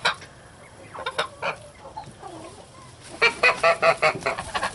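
Domestic geese calling: a few short honks, then a fast run of loud, repeated honks about three seconds in.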